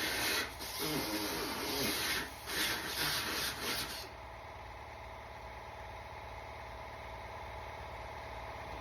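Small grinder abrading through welded sheet steel on a VW Beetle frame head, its pitch wavering under load, for about four seconds before it stops. A faint steady hum remains afterwards.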